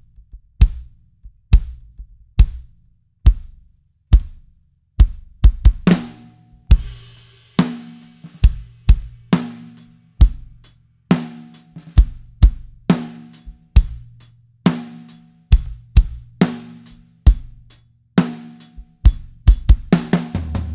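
A drum kit playing a steady groove: a 22-inch kick drum under snare backbeats and ringing drums, with a rounded low end. Near the end it switches to the same groove on an 18-inch kick drum.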